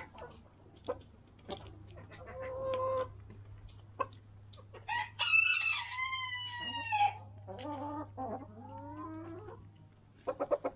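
Hens clucking and pecking at feed, with sharp taps throughout. About five seconds in, a rooster crows once, the loudest sound, lasting about two seconds, followed by short rising calls.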